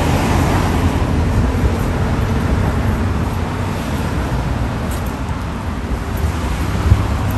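Road traffic noise: a steady rush of passing vehicles with a low rumble, swelling briefly at the start, and one brief thump near the end.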